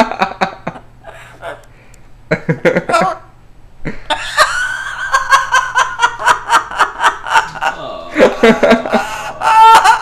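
Yellow-naped amazon parrot laughing in quick, rapid-fire pulses. There is a short burst at the start, another about two and a half seconds in, and a long unbroken run of laughter from about four seconds in.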